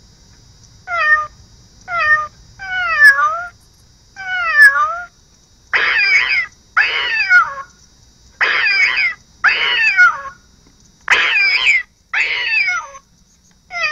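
Alarm clock's cat-meow alarm sound going off: about ten recorded cat meows in a row, each under a second with a gliding pitch. The first few are short and quieter, and from about six seconds in they come longer and louder.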